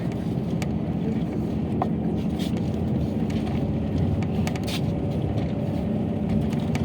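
A car moving along: a steady low engine and road rumble with a faint steady hum, and a few light clicks.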